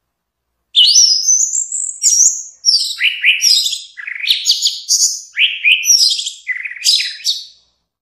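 Orange-headed thrush singing: a quick run of varied, high whistled phrases, many dropping in pitch, starting about a second in and stopping just before the end.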